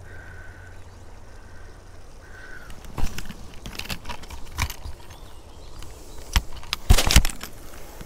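Metal clicks and rattles of a handheld fish lip-gripper and digital hanging scale being handled and hooked together. Several sharp clacks come from about three seconds in, and the loudest cluster of clatters is near the end.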